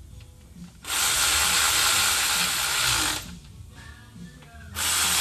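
Cordless ratchet running in two bursts, spinning a fastener on a UTV engine: one run of about two seconds starting a second in, then a pause, then it starts again near the end.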